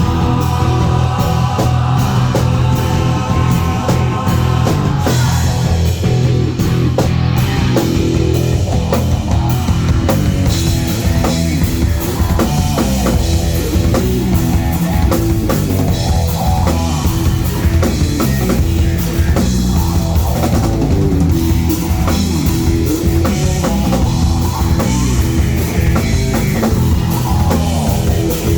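Live rock band playing loud, with drum kit and electric guitar, heard as a concert recording.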